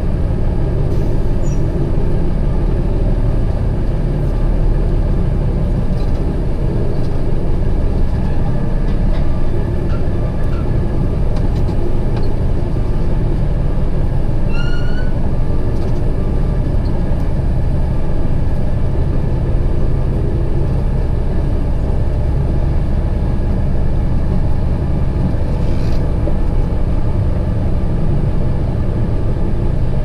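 Heavy truck's diesel engine running steadily at low speed, heard from inside the cab. A brief rising squeal about halfway through.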